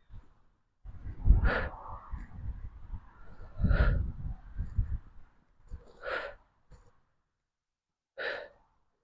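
A woman breathing hard from exertion during back lunges with knee drives: four short, forceful exhales about two seconds apart, the first two accompanied by dull low thumps of movement.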